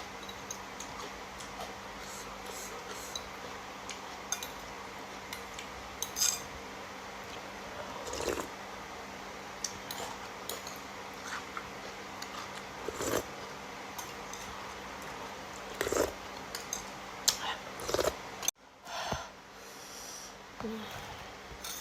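A person eating instant noodles: scattered faint clicks of cutlery against a bowl, with a few softer eating sounds, over a steady low hum.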